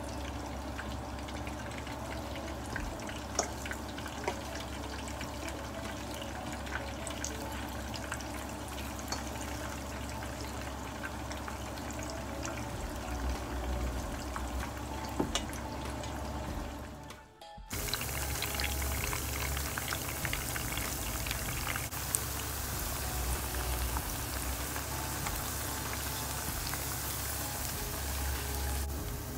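Batter-coated fritters deep-frying in a pot of oil: a steady crackling sizzle with scattered small pops. There is a brief break about 17 seconds in, after which the sizzle is fuller and brighter. Background music plays underneath.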